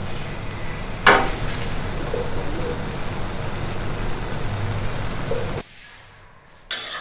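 Steady frying hiss from a wok of rice vermicelli cooking on the stove, with a metal spatula clanking against the wok about a second in and again near the end. The hiss cuts off abruptly a little before the end.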